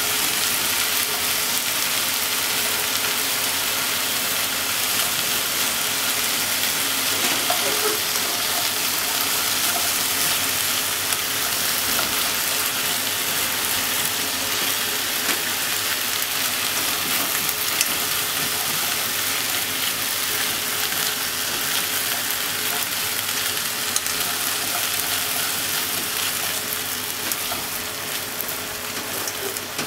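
Sliced onions and potato chunks sizzling steadily in a pot with fried bacon as they are stirred and turned with wooden cooking chopsticks.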